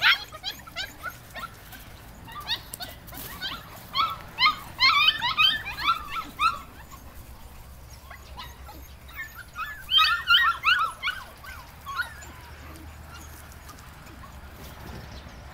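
Several puppies giving short, high-pitched yips and whines, overlapping in quick spells. The calls stop about three-quarters of the way through.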